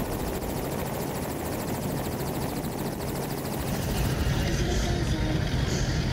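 Steady low engine rumble with a fast, even pulse, growing a little louder about four seconds in.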